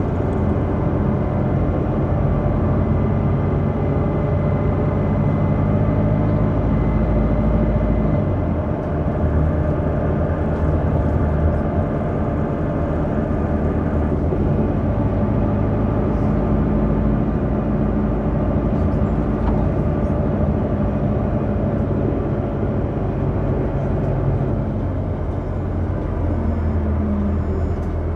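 BCI Proma minibus driving, its engine hum and road noise heard from inside the passenger cabin. The low engine note shifts about a third of the way in and eases a little near the end.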